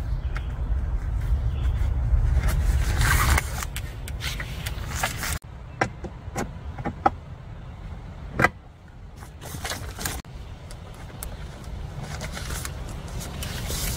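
A thin metal tarp pole clicks and scrapes as its tip is fitted into a tarp corner and into a bracket on a rooftop tent's aluminium frame, with sharp separate clicks and some fabric rustle. A low wind rumble on the microphone drops away about five seconds in and comes back near the end.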